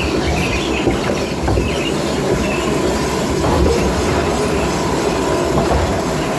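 Amusement ride vehicle running along its track, with a steady mechanical rumble and clatter.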